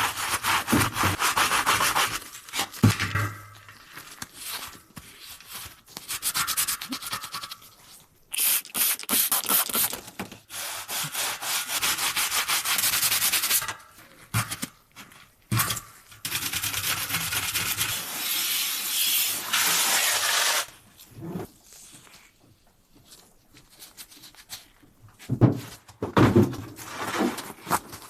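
Repeated bursts of rubbing or scraping, each lasting a few seconds, with a fast, even rhythm inside each burst and a few knocks near the end.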